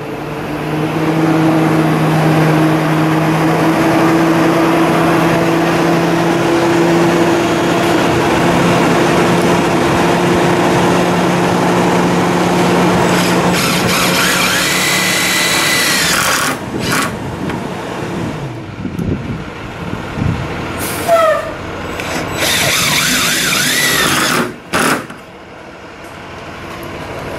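Cordless drill/driver running in one long steady stretch of about ten seconds, then in a few shorter, higher-pitched runs, fastening a rubber stop-arm bumper to the steel side of a school bus. A few sharp clicks follow near the end.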